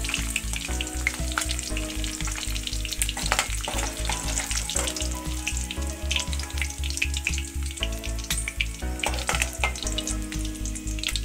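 Hot oil sizzling and crackling in a kadai as freshly fried prawns are lifted out, the frying just finished and the flame turned down. Underneath runs a low, even beat of about four pulses a second with held tones.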